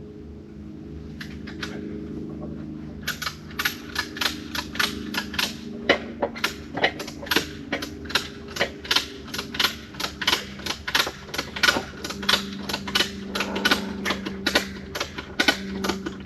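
Kubota tractor engine running steadily, with a metal ratchet clicking rapidly, about three clicks a second, starting a few seconds in: the tractor's log arm is being ratcheted up because it sits too low.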